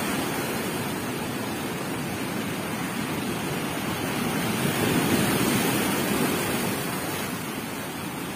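Strong sea waves breaking and surging up the shore, a steady rush of churning surf that grows louder about five seconds in.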